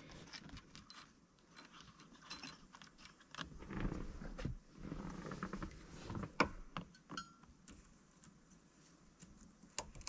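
Scattered light clicks and rattles of hands and tools on a steering column: a replacement clock spring being seated on the shaft and snap ring pliers brought in to fit its retaining snap ring.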